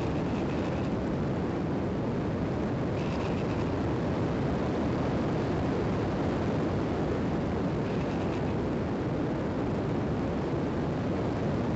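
Steady wind rush from the onboard microphone of an EasyGlider motor glider in flight, with faint short higher chirps now and then.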